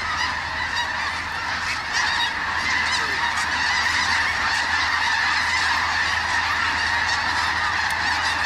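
A large flock of snow geese calling, a dense, steady din of many overlapping honking calls with no single bird standing out.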